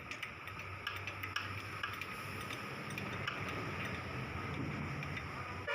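Scattered light metallic ticks and clicks of hand tools working on engine parts, over a low steady hum.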